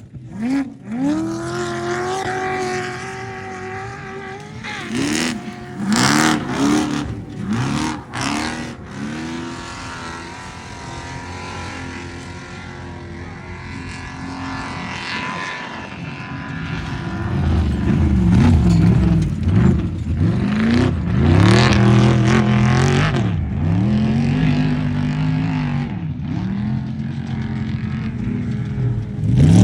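Off-road race truck engine revving hard through repeated gear changes, its pitch climbing and dropping back again and again. There are a few sharp cracks between about five and nine seconds in, and the engine gets louder and deeper from a little past halfway.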